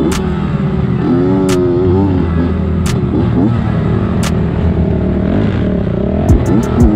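Kawasaki KX85 85cc single-cylinder two-stroke dirt bike engine being ridden, its pitch rising and falling over and over as the throttle is opened and closed. The engine is freshly rebuilt.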